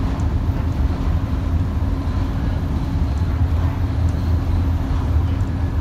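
Double-decker bus cruising on the open road, heard from inside the upper deck: its engine and the road noise make a steady low drone with a constant hum.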